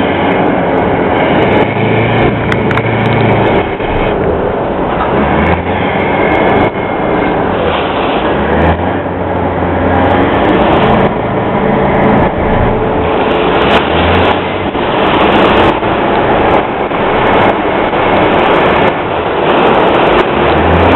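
Wind buffeting the microphone on the open deck of a moving car ferry, with the ferry's engine running steadily underneath. The wind swells unevenly, with deep gusty rumbles every few seconds.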